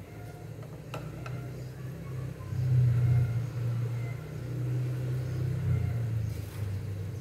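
A low, engine-like rumble that swells about two and a half seconds in and again around five seconds, then eases off.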